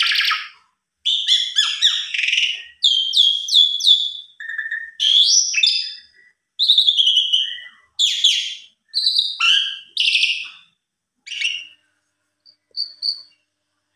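Javan pied starling (jalak suren) singing a long, varied song of clear whistles, quick descending slurs and harsh chattering notes, in phrases broken by short pauses. Near the end it tails off to a few soft short notes.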